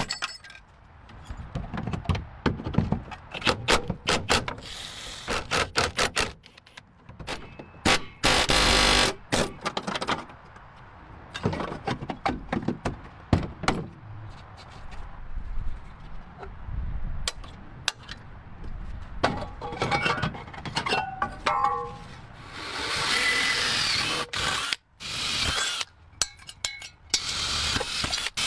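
Tools working on a car in a workshop: a long string of sharp metallic clicks, knocks and clanks, with a steady rush of power-tool noise lasting about two seconds near the end.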